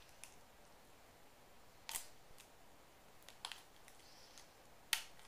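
Bicycle pedal reflectors being pried off with a pen: scattered sharp plastic clicks and snaps, the two loudest about two and five seconds in.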